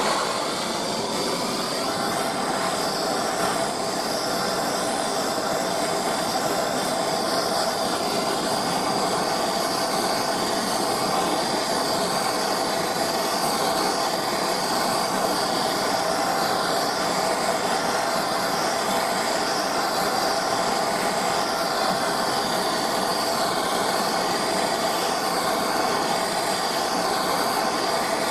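A workshop machine running steadily, a constant hiss with a hum, cutting in suddenly at the start.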